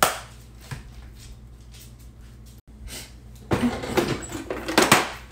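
A plastic storage lid snaps onto a container with a sharp click. After a pause, a kitchen drawer is pulled open and utensils clatter and knock inside it for the last couple of seconds.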